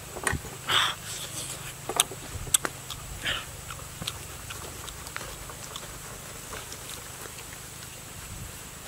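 A machete working into the flesh of a halved ripe jackfruit: a few sharp knocks and short rasping, tearing sounds of the blade through the fibrous pulp in the first three and a half seconds, then only a low, steady background.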